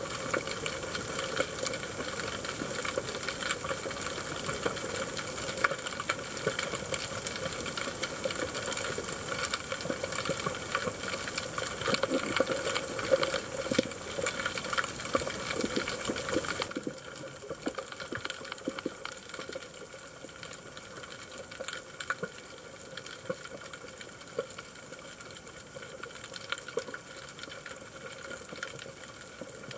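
Underwater ambience picked up by a camera in its housing: a steady hiss and hum with scattered crackling clicks. It drops abruptly quieter about 17 seconds in, where the footage cuts.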